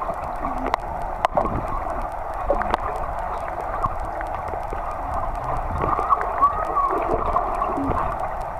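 Pool water heard from underwater through a submerged waterproof camera: a steady muffled gurgling hiss with scattered sharp clicks and faint, warped voices from the swimmers.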